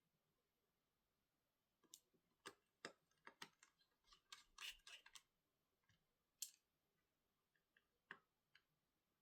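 Faint, irregular clicks and light scrapes of small tools and parts being handled while a laptop is worked on. The clicks come in a quick cluster from about two to five seconds in, then a few single clicks.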